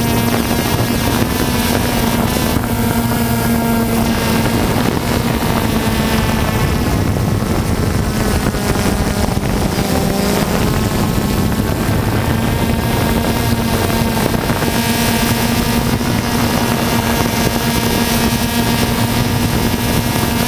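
DJI Phantom 2 quadcopter's four electric motors and propellers in flight, a steady whine that shifts slightly in pitch about halfway through, with wind rushing over the microphone.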